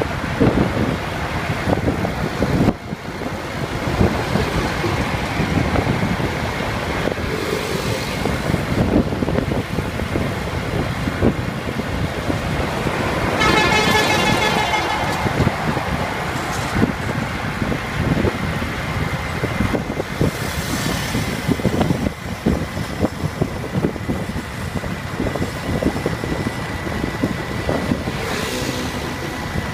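Highway traffic noise with wind rushing on the microphone of a moving vehicle, trucks passing close by. A vehicle horn honks for about a second and a half near the middle.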